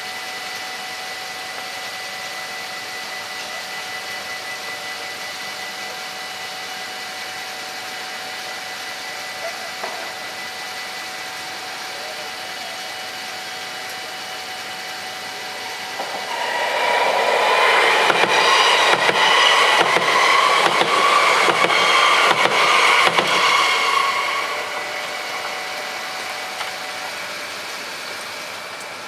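Dutch automatic half-barrier level crossing bells ringing steadily, then an NS SLT Sprinter electric train passing loudly from about 16 to 24 seconds in, its wheels clattering at a regular beat. The bells stop near the end as the barriers start to rise.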